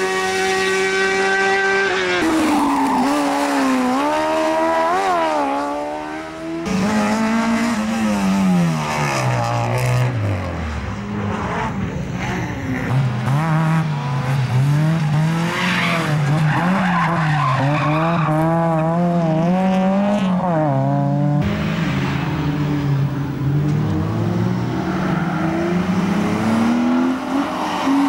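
Competition cars driven hard on a tarmac circuit, one after another. Each engine revs up and drops back through the gears and corners, with tyre squeal. First a single-seat buggy pulling away, then a small roadster for about fifteen seconds, then a BMW coupe near the end.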